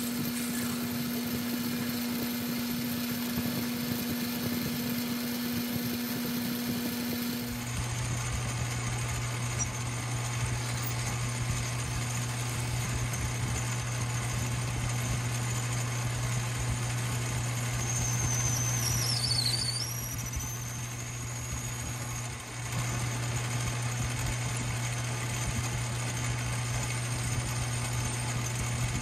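Metal lathe running with its spindle turning a brass rod as it is faced and drilled: a steady motor hum that drops to a lower pitch about seven and a half seconds in. A brief high squeal dips and rises in pitch near the twenty-second mark.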